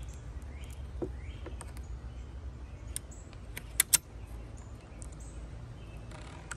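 Two sharp metallic clicks close together about four seconds in, with a fainter click about a second in, as the RV door lock's latch and face plate are worked into the door edge by hand. Faint bird chirps sound over a low steady background hum.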